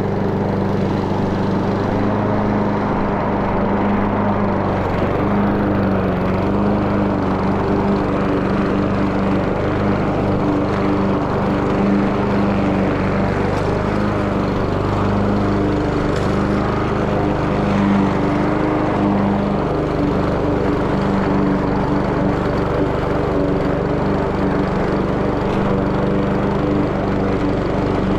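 Craftsman push lawn mower's Honda four-stroke engine running steadily at a constant speed.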